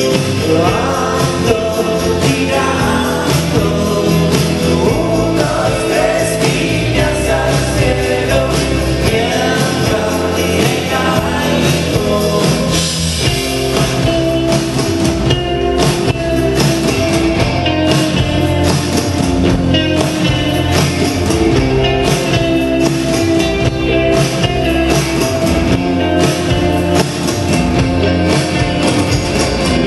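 Live rock band playing at full volume, drums and electric guitars with a sung vocal, heard through a phone's microphone from the audience.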